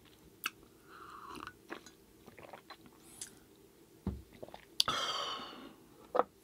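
Close-miked chewing of food, with scattered small wet clicks and smacks of the mouth and a short burst of noise about five seconds in.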